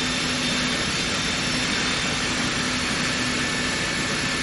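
Steady mechanical noise with a constant low hum, unchanging throughout.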